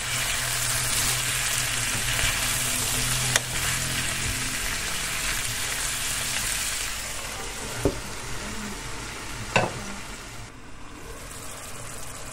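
Diced zucchini, carrot and onion sizzling in oil in a frying pan as they are stirred, with a few sharp knocks. The sizzle grows fainter after about seven seconds and briefly drops away near the end.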